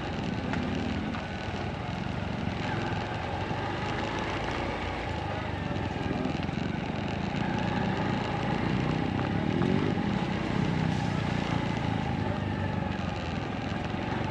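Motorcycle engine running while riding, its pitch rising and falling with the throttle over a steady rush of wind.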